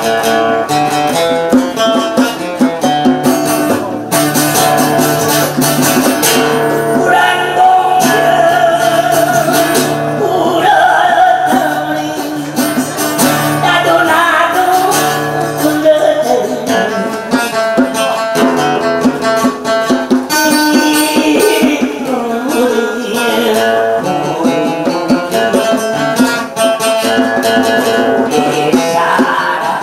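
Live acoustic guitar and djembe hand drum playing together, with a voice singing over them.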